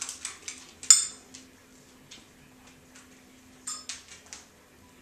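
Metal scent-article dumbbells clinking as a dog noses through the pile. There are two ringing clinks, one about a second in and a smaller one near four seconds, and the dog's claws tick on the hardwood floor at the start.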